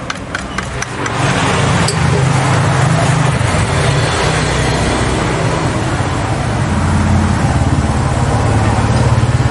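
A wooden stir stick clicks against the inside of a metal paint can a few times, then about a second in a loud, steady motor rumble starts and runs on, covering the stirring.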